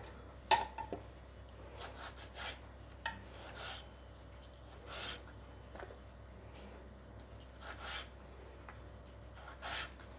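Faint, scattered rubbing and scraping as cut tomato pieces are handled on a wooden chopping board and put into a plastic chopper bowl, with the sharpest scrape about half a second in.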